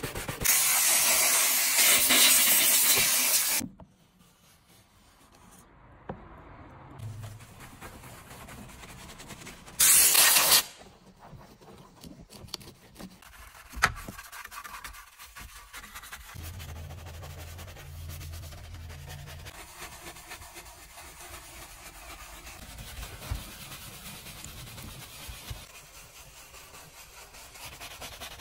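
Detailing brushes scrubbing foamy cleaner into textured plastic car interior trim, in short takes. The scrubbing is broken by two loud bursts of rushing noise: a long one near the start and a short one about ten seconds in.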